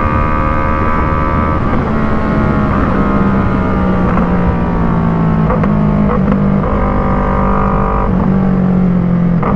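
Yamaha MT-03's parallel-twin engine through an Arashi aftermarket exhaust fitted with a dB killer, which holds the sound in a lot. The note falls slowly at first, then shifts up and down several times as the throttle changes, with a few short pops.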